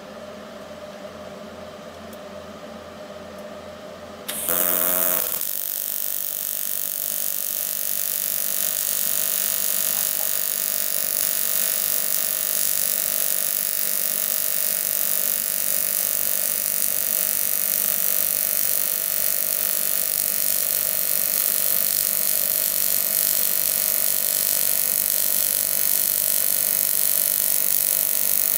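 TIG welding arc on 6061 aluminum tubing: the arc strikes about four seconds in with a short buzz, then runs as a steady hiss while the joint is welded. A low hum is heard before the strike.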